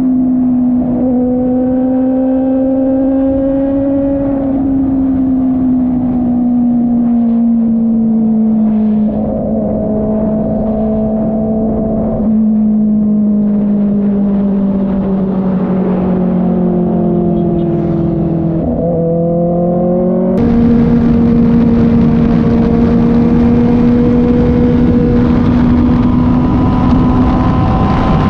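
Kove 450 Rally motorcycle's single-cylinder engine running under way, its note easing slowly down with small pitch changes every few seconds. About twenty seconds in the sound jumps to a louder, harsher tone with more hiss.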